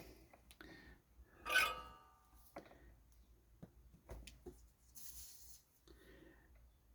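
Quiet workbench handling noises: a few light clicks and taps, with one brief ringing clink about a second and a half in, as small tools and electronic kit parts are handled.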